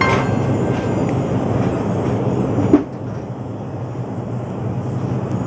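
Steady rumbling supermarket background noise as the phone is carried through the aisles, with one sharp knock nearly three seconds in, after which it is a little quieter.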